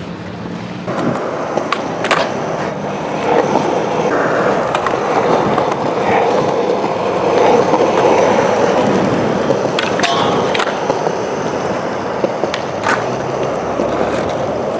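Skateboard wheels rolling steadily, with a few sharp clacks of the board along the way.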